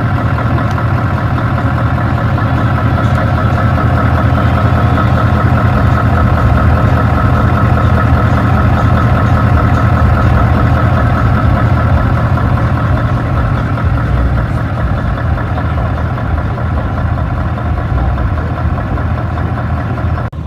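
Scania R580's V8 diesel engine idling steadily, heard close up at the open front of the truck.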